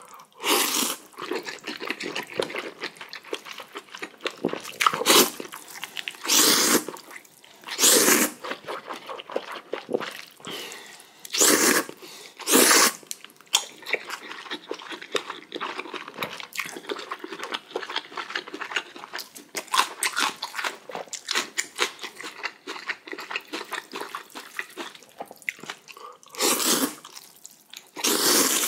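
Close-miked eating of spicy cold noodles: about eight loud slurps of roughly half a second each, most in the first half and two near the end, with steady wet chewing between them.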